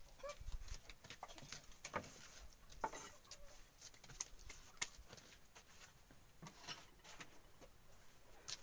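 Faint scattered clicks and light taps of a knife and hands working a banana heart on a plate, with a few faint short chirps now and then.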